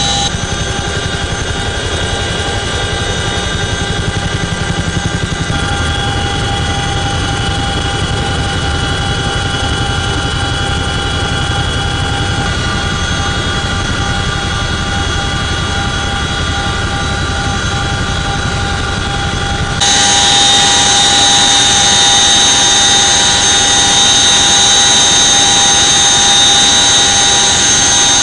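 Loud, steady cabin noise of a CH-47 Chinook helicopter in flight: a high whine of several steady tones from its transmissions over a low rumble. About twenty seconds in the sound changes abruptly: the low rumble drops away and the high whine gets louder.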